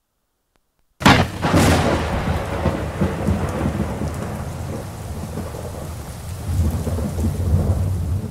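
Recorded thunderstorm sound effect starting suddenly about a second in after a moment of silence: a loud crack, then steady rain and rumbling thunder, opening a played-back track.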